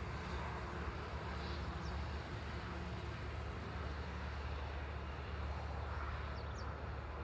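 Steady low background rumble with an even hiss above it. Faint short high chirps come about two seconds in and again near the end.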